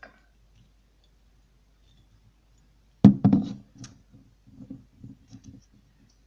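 A loud knock about three seconds in, followed by a run of quicker, softer taps and handling noises.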